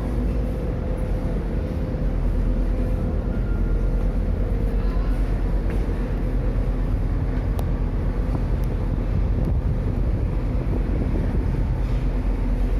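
Steady low rumble of a ferry's engines, with a faint hum over it.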